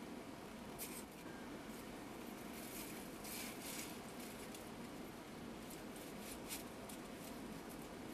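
Faint rustling and scraping of wooden poles and leafy branches being handled while building a hut frame, in short scratchy spells about a second in, again from two and a half to four seconds, and around six seconds, over a steady low hiss.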